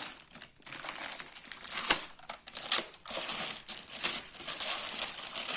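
Plastic packaging crinkling and rustling as vacuum cleaner parts are unwrapped and handled, with a few sharp clicks.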